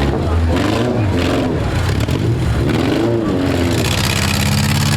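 Four-cylinder demolition derby car engines running and revving, their pitch rising and falling again and again.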